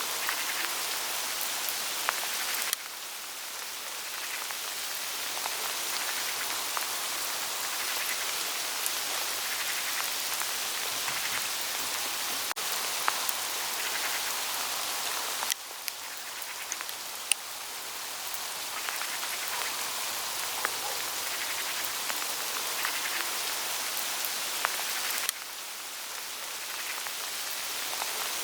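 Hail falling on autumn forest leaves: a dense, steady patter with scattered sharper ticks of single stones striking. It drops suddenly three times and then builds back up each time.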